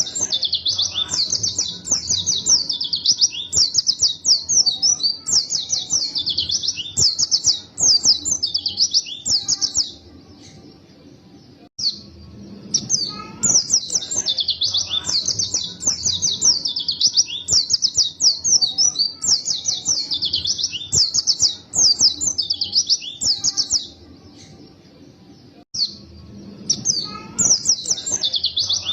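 White-eye (pleci) singing a fast, excited song of rapid high twittering notes in long unbroken phrases. The song breaks off twice for about two seconds.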